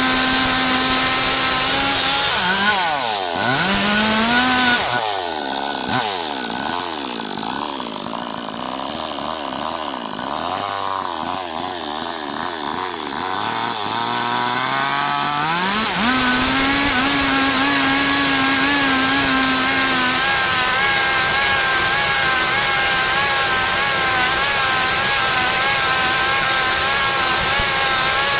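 Stihl MS 382 two-stroke chainsaw running at high revs, then eased off a couple of seconds in, its revs swinging up and down and sinking low and quieter for about ten seconds. It climbs back to steady high revs around the middle and holds there.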